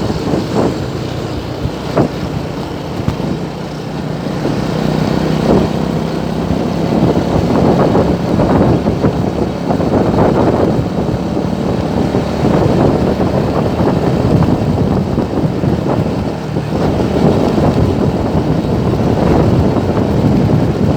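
Road traffic in a jam: vehicle engines running with continuous traffic noise.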